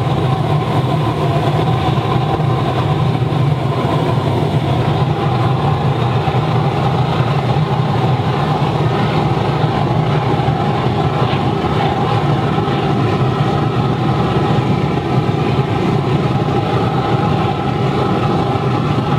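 Waste vegetable oil burner and its blower firing into a brick-lined steel-drum furnace: a loud, steady low rumble of flame and forced air.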